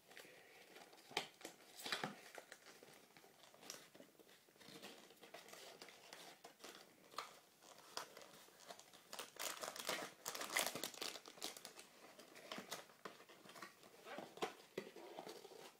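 A toy box's cardboard and clear plastic packaging being opened by hand: irregular crinkling, crackling and tearing, busiest a little past halfway.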